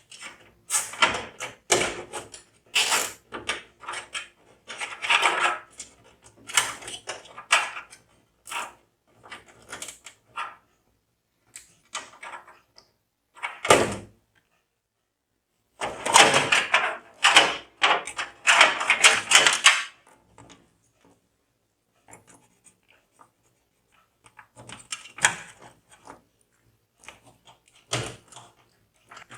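Irregular clicks, knocks and rustling from hands handling PC hardware, coming in bunches with silent gaps between them.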